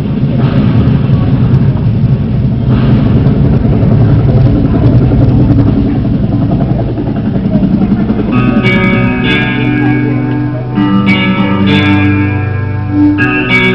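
Dense, noisy rumble of room noise for about eight seconds. Then guitar music starts: plucked and strummed notes ringing out, a new chord roughly every second.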